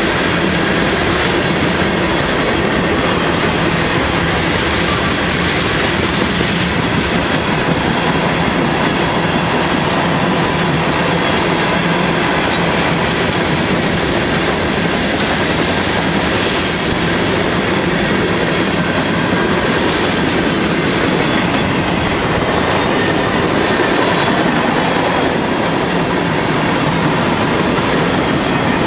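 Freight cars of a long mixed freight train rolling past at steady speed: hoppers, tank cars and boxcars, wheels clacking over the rail joints, with brief high wheel squeals several times.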